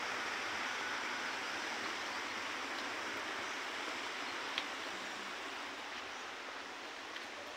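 Steady outdoor rushing hiss with no clear tones, easing off a little toward the end, with one faint tick a little past halfway.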